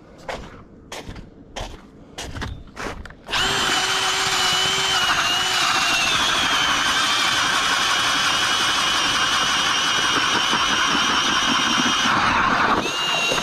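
A few crunching footsteps on ice, then a cordless drill starts about three seconds in and runs steadily with a high whine, turning an ice auger down through the lake ice; its pitch sags a little as the bit bites. Near the end it briefly speeds up again, then stops.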